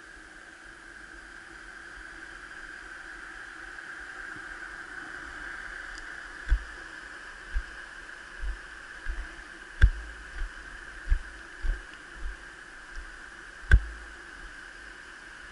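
Quiet outdoor ambience with a steady high-pitched hum, broken in the second half by about a dozen short dull thumps, the sharpest about ten seconds in and near the end.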